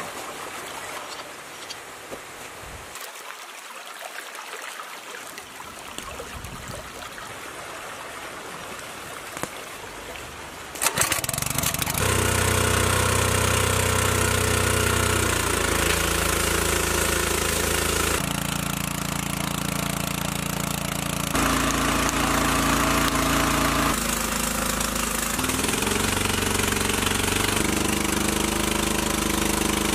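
Small petrol engine of a portable water pump starting about eleven seconds in, then running loudly with its note shifting up and down several times as it pumps water out through the outlet.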